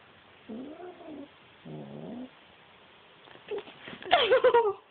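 House cat yowling in rough play: two drawn-out low calls in the first half, then a few clicks and a louder, wavering yowl near the end.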